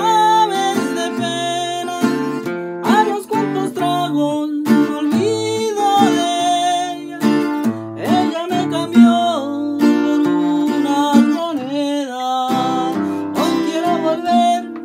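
A man singing with his own strummed acoustic guitar accompaniment, the sung melody sliding between held notes over steady chords.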